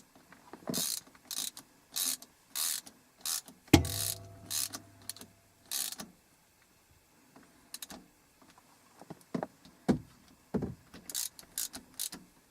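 Metal hand tools working on a manual-transmission shifter mount: a run of short scraping, clicking strokes, with one sharp metallic clank about four seconds in that rings briefly.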